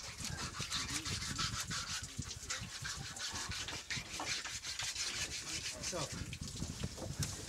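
A knife sawing and scraping through a manta ray's gill tissue and cartilage by hand, a rapid run of short, rough scraping strokes.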